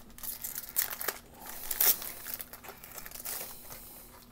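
Foil wrapper of a trading-card pack crinkling and tearing as it is ripped open by hand, in irregular crackles that are loudest about a second in and just before two seconds in.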